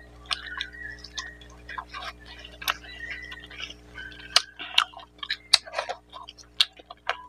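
Close-miked eating: a person chewing a mouthful of rice and mutton curry, with irregular sharp wet mouth clicks and lip smacks, several a second.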